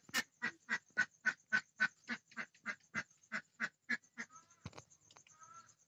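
A boti blade slicing through crisp green vegetables, a quick regular series of short snapping cuts about four a second that stops about four seconds in. A couple of faint warbling sounds follow near the end.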